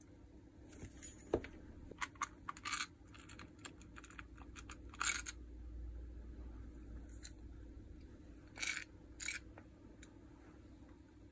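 Scattered small metallic clicks, taps and short scrapes of hand disassembly as the gearbox of a DeWalt DCH333 cordless rotary hammer is unscrewed and its parts handled. The loudest are a knock about a second in and a brief rattling scrape about five seconds in.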